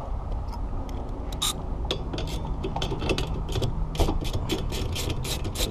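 Hand ratchet clicking as it turns the nut at the base of a windshield wiper arm to take the arm off. The clicks start about a second and a half in and come quick and even, about five a second.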